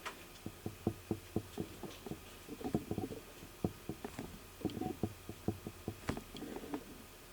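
Light, irregular clicks and taps, about two to three a second, with a few brief rustles, from small handwork with a nail art brush and a press-on nail while black gel paint is applied.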